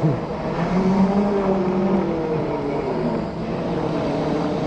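Electric motors of Segway x2 off-road self-balancing scooters whining, the pitch rising and falling slowly with speed, over a low rumble.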